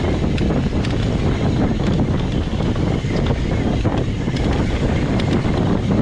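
Wind noise on the microphone over the rumble of an Evil Insurgent MX mountain bike's tyres on a downhill dirt trail, with many sharp clicks and rattles from the bike throughout.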